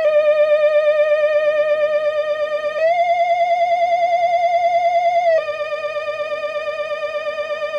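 Eerie electronic tone with a fast, wavering vibrato in the style of a theremin: the looping retro Halloween spooky sound. It holds a lower note, steps up to a higher one about three seconds in, and drops back to the lower note a few seconds later.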